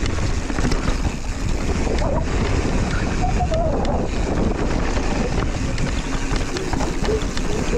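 Wind rushing over the camera microphone while a mountain bike rolls fast down a dry dirt trail, its tyres rumbling on loose gravel and the bike clattering over braking bumps in the corners.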